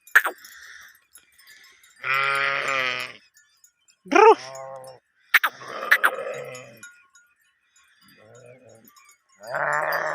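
Sheep bleating, several separate calls. The longest is a wavering bleat about two seconds in, with others around four and six seconds and near the end. A few short sharp clicks fall between the calls.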